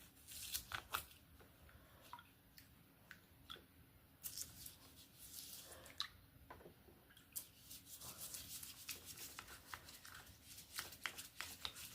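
Faint scrubbing and rubbing strokes on a plastic Barbie doll, with scattered small clicks and short scratchy rustles as the doll is washed.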